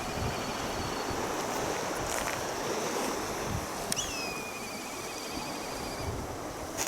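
Sea waves washing on the shore, with wind on the microphone, as a steady rushing noise. About four seconds in, a bird gives one high whistled call: a sharp first note, then a long wavering note lasting about two seconds.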